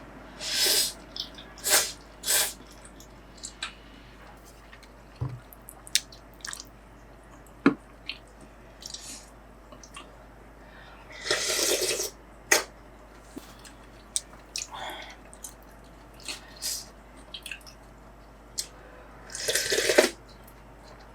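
Kitchen cooking sounds: a few short bursts of running water, about a second each, among scattered clicks and knocks of utensils and dishes.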